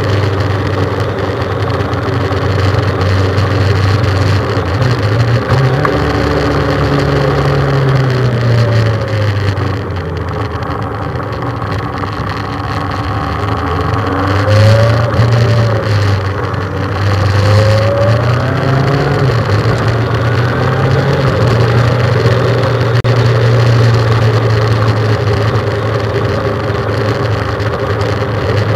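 Motorcycle engine running steadily at road speed, heard from on board. Its note dips and rises a few times around the middle as the throttle is eased off and opened again.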